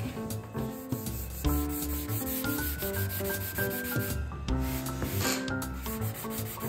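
Sanding block rubbed back and forth over the wooden top of a solid-body guitar, abrasive paper scraping on wood, with background music of held notes.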